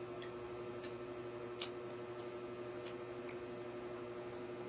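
Faint, irregular wet clicks of someone chewing and licking her fingers, over a steady low hum.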